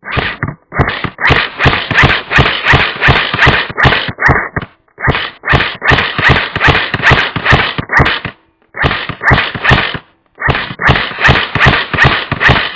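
Electric airsoft gun running off an 11.1 V LiPo, firing full-auto in four long bursts of rapid, evenly spaced shots with short pauses between them.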